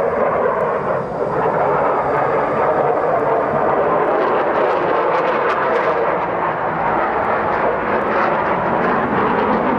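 Jet noise from F-14 Tomcat fighter jets flying low overhead: a loud, steady rushing sound.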